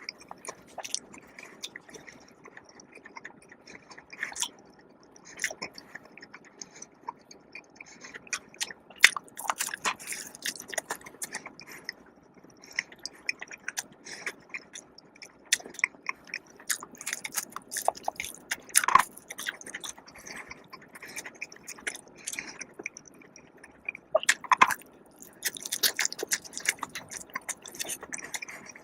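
Close-miked eating: a person chewing and biting food, with irregular wet clicks and smacks and short louder bursts now and then.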